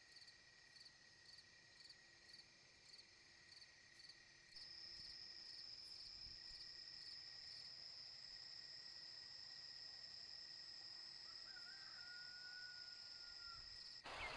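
Crickets chirping at night, faint: regular short high chirps about two a second, giving way about four and a half seconds in to a steady, continuous high trill. A faint held lower tone sounds for a couple of seconds near the end.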